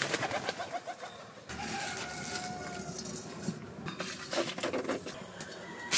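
Farmyard birds: a quick flurry of wing flaps as a pigeon takes off at the start, then chickens clucking with other birds calling.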